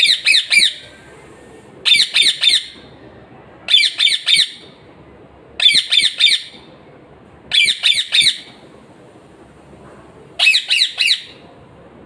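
Green parakeet squawking in six short bursts of three or four harsh, high calls each, about two seconds apart.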